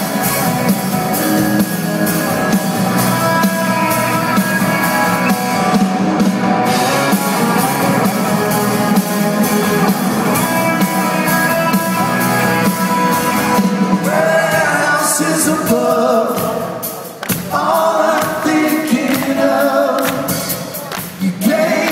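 Live rock band playing guitars, upright bass and drums, with several voices singing in harmony. The sound is picked up from within the audience, with the reverberation of a large hall.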